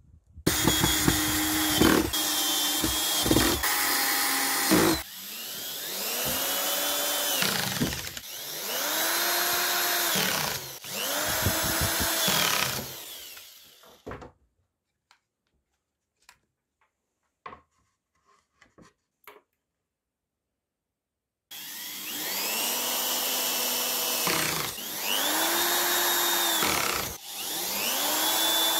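Electric drill driving screws into steel hinges on plywood. The motor spins up, runs for two or three seconds and winds down, again and again: a rougher, louder run with knocks first, then three runs, a quiet pause of several seconds with small clicks, and three more runs.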